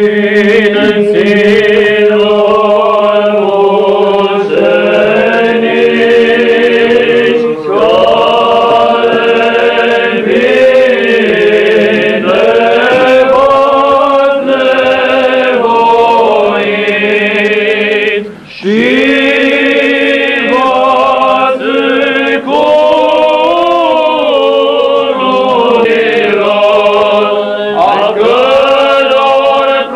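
Orthodox church choir chanting a liturgical hymn in Byzantine style, the melody moving over a steady held drone note, with a brief pause between phrases about two-thirds of the way through.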